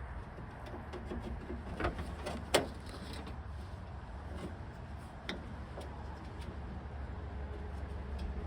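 A few light clicks and knocks of metal parts being worked inside a car door, about three spread over several seconds, over a steady low hum.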